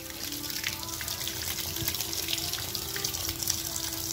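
Kitchen tap turned on and running, a stream of water splashing into the sink with a faint low hum under it.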